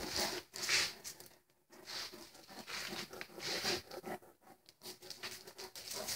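Irregular rustling and scraping bursts from a Great Dane puppy moving about on a tile floor close to the handheld camera.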